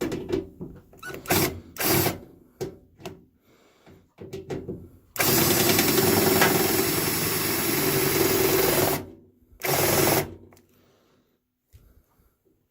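Electric drill turning a Speed Out screw-extractor bit against a security screw head in a microwave's metal casing. It gives several short trigger pulls, then one steady run of about four seconds, then a last short burst.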